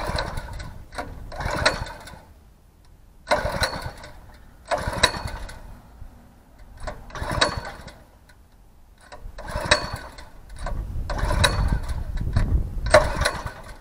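Small gasoline engine on a rear-tine tiller being pull-started by its recoil cord again and again, each pull a short burst of cranking with quiet gaps between. It is a cold start that does not catch, and the engine never keeps running.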